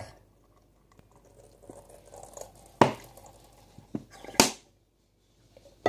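Plastic dish-soap bottle being handled and squeezed to pour soap into a glass: quiet handling noise, a sharp click near the middle, and a short loud burst of noise about a second and a half later.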